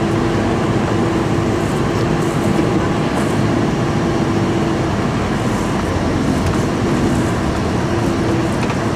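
Interior noise of a moving tour bus: steady engine and road rumble, with a low engine hum that drops away about five seconds in.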